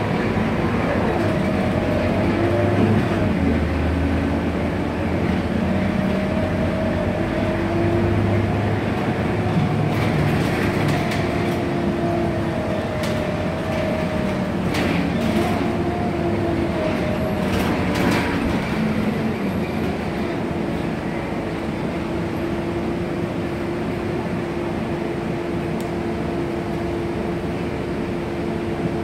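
Diesel city bus heard from inside near the front, its engine and drivetrain running with a steady whine that slowly rises and falls with speed. A few sharp clicks and rattles come around the middle, and then the running settles to an even note.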